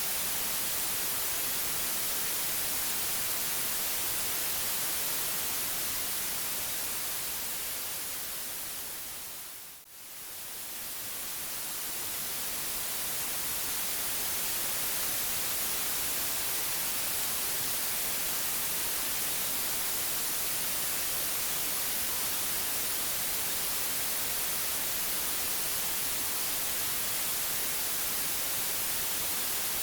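Steady white noise, an even hiss strongest in the high end, that fades down to a brief low point about ten seconds in and swells back up.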